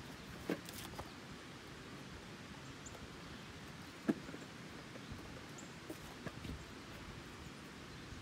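Goat kids' hooves tapping and knocking on wooden logs as they walk and hop along them: a few soft, scattered knocks, the sharpest about four seconds in. Faint high bird chirps come now and then over a quiet outdoor background.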